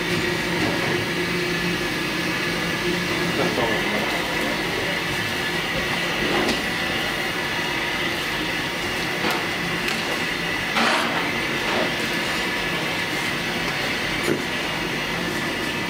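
Steady drone of commercial kitchen equipment, holding a few constant tones, with occasional clinks and scrapes as handfuls of rice are scooped from a steel bowl and tipped into a large pan of broth.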